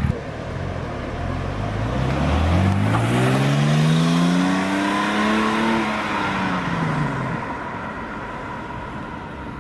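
Porsche 911 Turbo's twin-turbocharged flat-six accelerating, its pitch climbing for about four seconds, then falling away over the next two as the engine fades.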